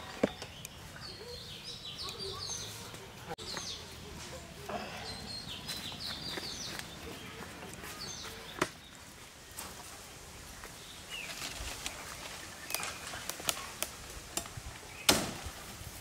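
Cooking utensils knocking and scraping in a pan: a few sharp knocks and a run of small clicks near the end, with small birds chirping in the background.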